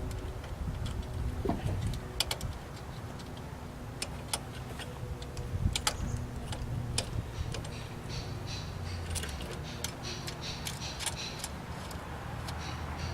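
Hand tools on bolts: scattered metallic clicks and clinks of a wrench turning and seating the alternator bracket bolts on a 3.8-litre V6, with quicker light ticking in the second half.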